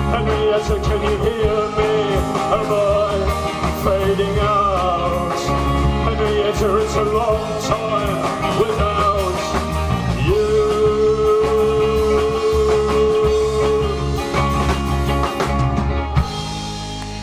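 A rock band playing live through the instrumental close of a song, with a steady beat and a long held note past the middle. The band stops near the end and the last chord is left ringing.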